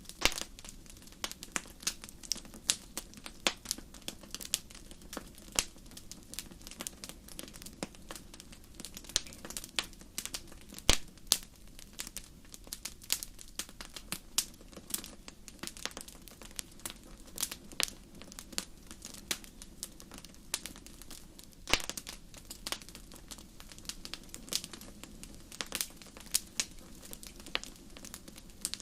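Campfire crackling: burning wood snapping and popping in dense, irregular sharp cracks over a steady low background, with a few louder pops, one about a third of the way in and another about three quarters through.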